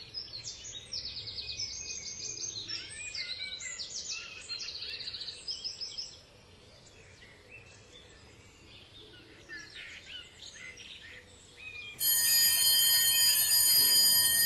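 Songbirds singing in fast runs of repeated high notes, dying down to a few faint calls about halfway through. About twelve seconds in, a loud, steady electronic alarm suddenly starts ringing.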